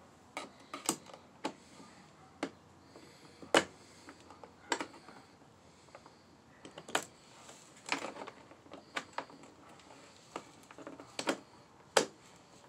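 Irregular small clicks and taps of fingers and a tool working at the carburetor and throttle linkage of a Holzfforma G660 chainsaw, the linkage being pried loose. The clicks come singly, seldom more than one or two a second, with sharper snaps about three and a half seconds in and again near the end.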